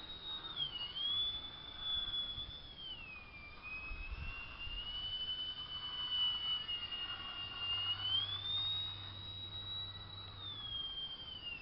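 Scratch-built 3D Troll RC biplane's motor and propeller giving a high, steady whine that dips in pitch about three seconds in, climbs again around eight seconds, and falls away near the end as the plane manoeuvres.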